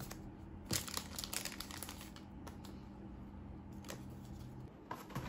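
Foil trading-card booster-pack wrappers crinkling and rustling as they are handled, in scattered bursts that are busiest about a second in.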